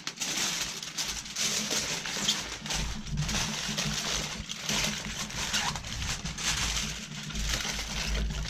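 Heavy-duty aluminium foil crinkling and crackling in irregular bursts as it is folded and crimped tightly around a piece of brisket.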